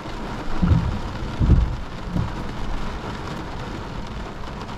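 Heavy thunderstorm rain pelting a car's roof and windshield, heard from inside the car, with a few short low rumbles in the first half.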